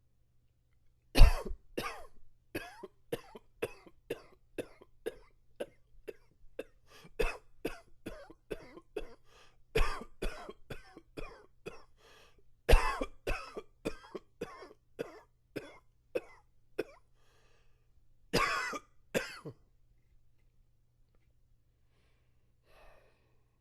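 A man's coughing fit from allergies: a long run of short, harsh coughs, about two a second, with the loudest about a second in, then two longer, heavier coughs near the end.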